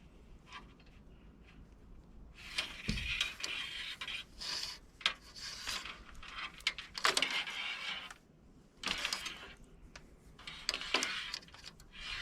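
Window screen mesh being handled, rubbing and scraping in several irregular bursts, with a few light clicks and a dull thump about three seconds in.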